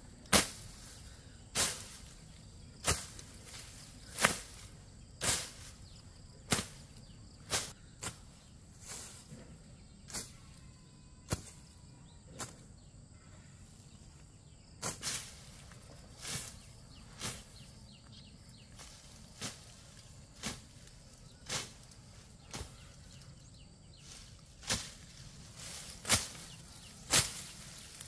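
Repeated sharp swishing strokes, roughly one a second, with two short pauses.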